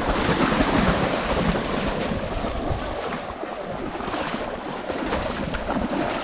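Wind buffeting the microphone over the steady rush of river water.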